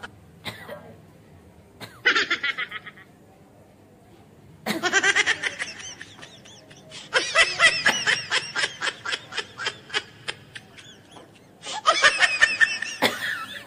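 Laughter in four bouts of rapid giggling with short pauses between them, the longest running several seconds in the middle.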